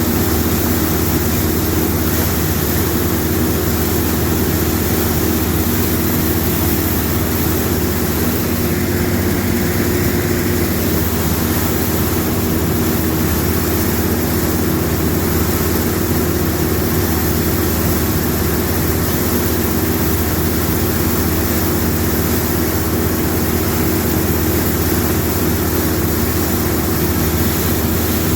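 Small vintage combine harvester running steadily while cutting, a continuous engine drone with the clatter of its threshing works, unchanging throughout.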